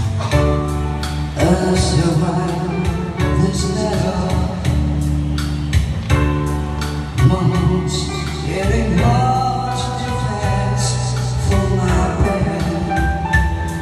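A man singing into a handheld microphone over a karaoke backing track with a steady beat.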